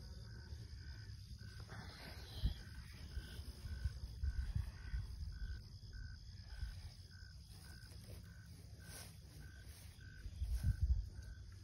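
Outdoor ambience with a faint, even chirp repeating about twice a second, under low rumble and a few dull thumps, the loudest about ten seconds in.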